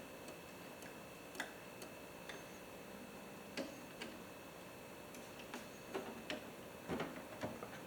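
Scattered light clicks and taps, about a dozen at irregular intervals, from handling the MIG welding wire as it is fed by hand into the welder's wire-feed drive roller.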